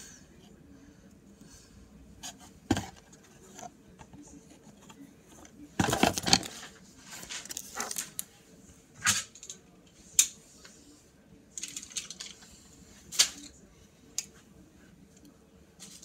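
Unboxing a Beyblade top: scattered clicks, taps and short rustles as the packaging and the small plastic and metal parts are handled, with a longer rustle about six seconds in.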